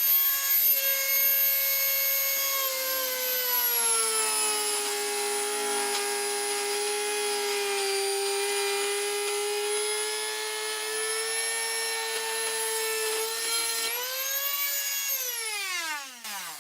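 Dremel rotary tool with the PL400 planer attachment running at a high whine while planing the edge of a 2x4. The pitch sags a little under the load of cutting, rises briefly about 14 seconds in, then falls steadily as the motor is switched off and spins down.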